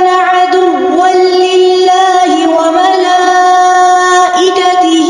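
A single voice reciting the Quran in the melodic tajweed style, holding long notes with small ornamental turns and dips in pitch.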